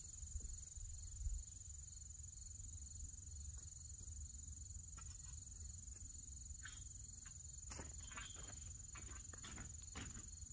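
Faint rural outdoor ambience: a steady high insect drone with crickets chirping, over a low steady rumble. Scattered light steps and soft knocks come in the second half, as of someone walking across a plastic tarp.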